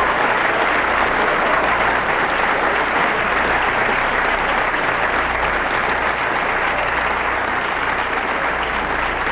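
Audience applause, a steady, dense clapping that holds at one level.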